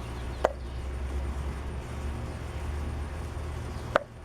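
Spark plug wire boots being pulled off the plugs, two sharp clicks about three and a half seconds apart, over a steady low background rumble.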